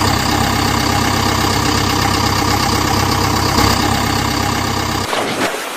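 An engine idling steadily, with a deep hum and an even throb, that cuts off abruptly about five seconds in.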